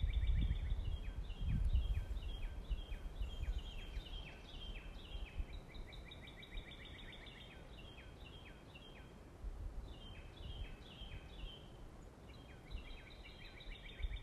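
A chorus of birds chirping: quick, repeated high chirps with short trills, running on steadily. A low rumble is loudest in the first couple of seconds.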